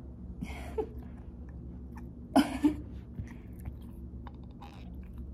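Dog gnawing on a rubber chew toy, with a few short, breathy bursts, the loudest a quick double one about two and a half seconds in.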